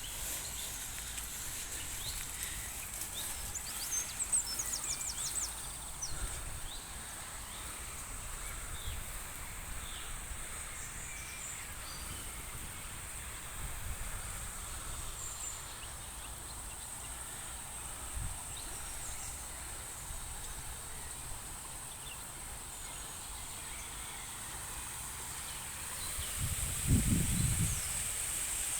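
Steady rushing of a flood-swollen creek, with a few short bird chirps about four seconds in and a brief low rumble near the end.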